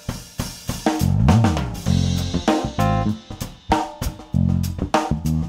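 Intro music: a drum-kit beat with sharp, regular hits over a low bass line, with a bending pitch glide about a second in.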